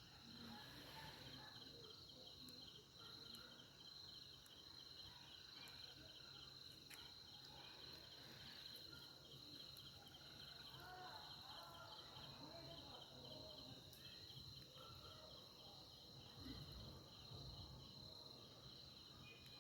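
Faint insects, likely crickets, chirring steadily: a thin high trill with a rapid even pulse, and otherwise near silence.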